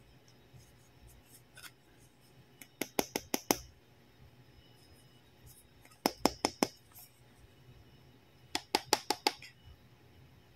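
Hard plastic toy otoscope from a children's doctor play set, clicking as it is handled: three quick runs of about five sharp clicks each, a few seconds apart.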